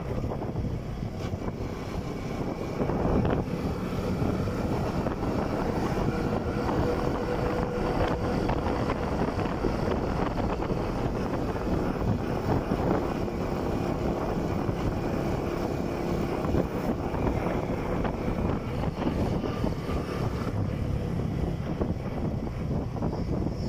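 Motorcycle being ridden along a road: the engine runs steadily under a rush of wind on the microphone and road noise, with a faint engine hum that settles to a lower pitch about halfway through.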